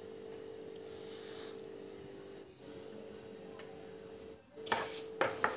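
A steady faint hum and hiss from a lit gas burner under a dry pan of matta rice. About four and a half seconds in, dry rice grains start being stirred in the pan with a wooden spatula: a few quick scraping strokes.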